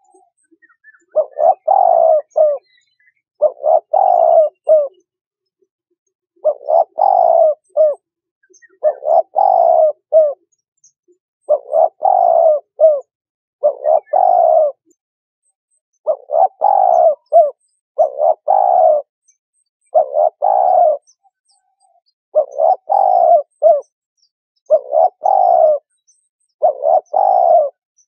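Spotted dove cooing: the same short phrase of several coos, repeated about a dozen times, roughly every two seconds, with silence between phrases.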